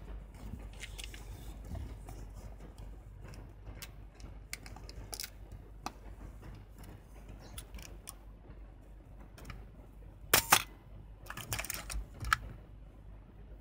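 35 mm film being threaded into an open Canon F-1 film camera: light taps, scrapes and small clicks of the film leader and the camera's take-up spool and body under gloved fingers. About ten seconds in come a loud pair of sharp clicks, then a quick cluster of further clicks.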